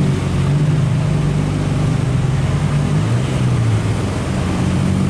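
Heavy truck's diesel engine running under load. Its note drops slightly about three seconds in, then climbs again near the end.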